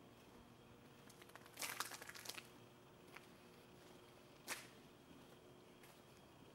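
Near silence with a faint steady hum. A short spell of crackling, crinkly rustle comes about a second and a half in, and a single brief scuff comes midway.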